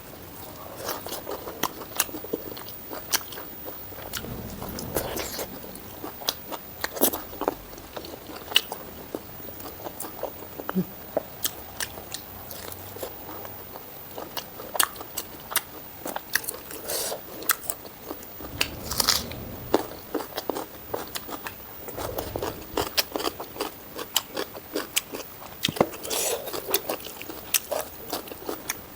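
Close-miked eating: crunchy bites and chewing of food, with many irregular sharp mouth clicks and crackles and a few louder crunches throughout.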